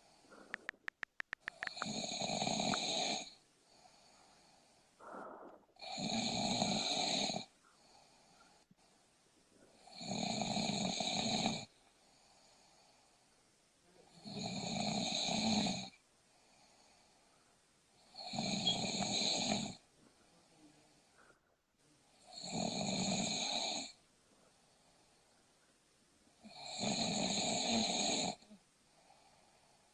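A person snoring in a slow, regular rhythm: one loud snore about every four seconds, each lasting over a second, with quiet breathing gaps in between.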